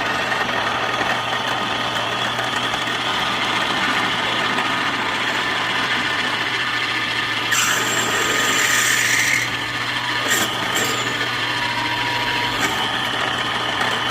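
Power drill running continuously with an M2 high-speed-steel split-point twist bit boring into metal. The cutting sound turns harsher and brighter for a couple of seconds past the middle, with a few short knocks just after.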